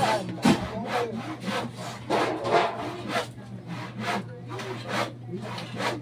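Hand saw cutting wood, in an even rhythm of about two to three strokes a second.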